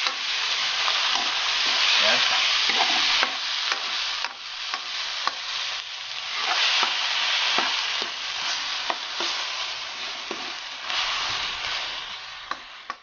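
Chopped tomatoes, onions and garlic sizzling in oil in an aluminium wok while being sautéed, a spatula scraping and knocking against the pan as it stirs. The sizzle is strongest in the first few seconds, eases off after that and fades away near the end.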